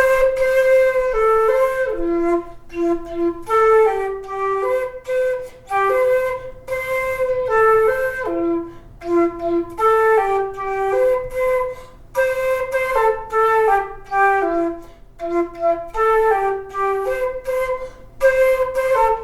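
Music: a solo flute playing a melody of short separated notes, the same phrase coming round about every six seconds.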